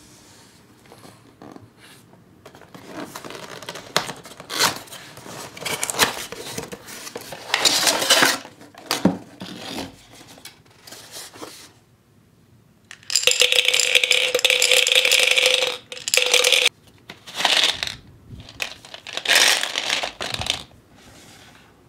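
A plastic toy gumball-machine bank being handled and slid out of its cardboard box, with cardboard scraping and the gumballs rattling against each other inside the clear plastic globe. The sound comes in irregular bursts; the longest, a steady rattle of about three seconds, falls just past the middle.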